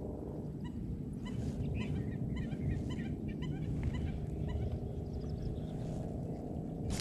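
Kayak's bow-mounted electric trolling motor running, a steady low rumble, with faint short high chirps over it in the first few seconds.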